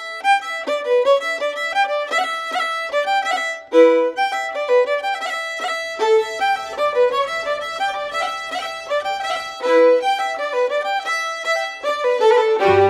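Shetland fiddle playing a quick, lively tune unaccompanied, note after note in a fast run; near the end a lower accompaniment comes in underneath.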